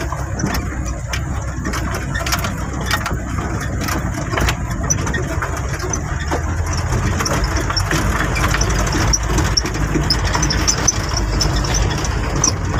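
Truck engine running steadily, heard from inside the cab, as it crawls over a rough stony dirt track; the cab rattles and knocks again and again as it jolts over the stones.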